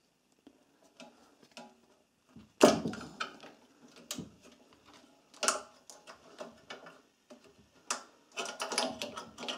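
Small metal clicks and knocks from the control cable and its linkage being worked free on a Honda GX160 engine. The loudest knock comes about two and a half seconds in, another about five and a half seconds in, and a quick run of clatter near the end.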